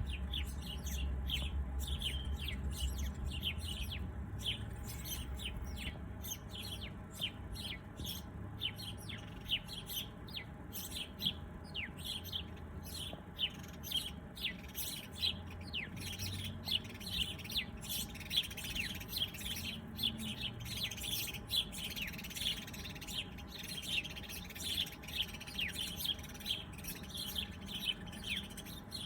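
A chorus of small birds chirping: rapid, overlapping short chirps, many of them quick downward sweeps. A low rumble sits underneath for the first several seconds.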